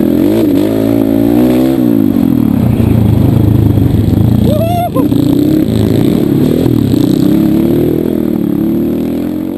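Trail motorcycle engine running under way, its pitch rising and falling with the throttle. Near five seconds in, a short high cry rises and falls across it. The sound fades out near the end.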